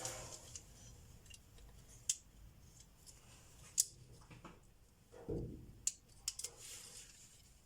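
Scissors snipping a small piece of heat-shrink tubing: a few separate sharp clicks, with a short rustle a little past halfway.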